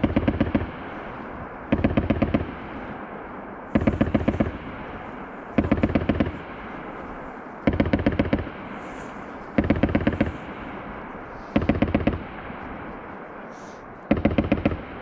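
FN MAG 7.62 mm machine gun firing short bursts of several rounds each, about one burst every two seconds, eight bursts in all, each followed by a rolling echo.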